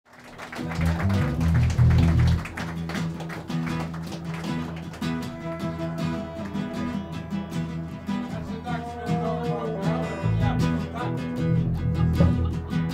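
Live rock band playing a song's instrumental intro: acoustic guitar strumming over electric guitars, bass and drums. It fades in over the first second.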